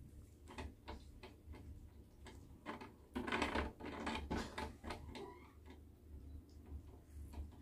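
Faint, irregular small clicks, with a louder rustling patch about three seconds in as a hand takes hold of the spring-mounted pom-pom wand of a cat toy.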